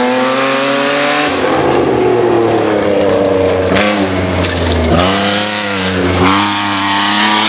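Winged open-wheel race car's engine at high revs climbing a dirt hill. The pitch rises through the first second and then falls away. About halfway through it drops and climbs again three times in quick succession, and the sound cuts off abruptly near the end.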